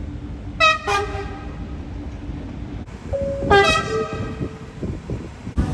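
Train horn sounding two short blasts about three seconds apart, each stepping from a higher note to a lower one, over the loud low rumble of the train running close by.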